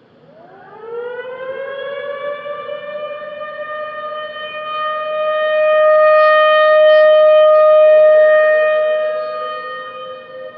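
Outdoor warning siren winding up from silence, its pitch rising over about a second and a half to a steady wail. It swells loudest midway and then eases. Near the end a second siren tone, slightly lower, can be heard alongside it.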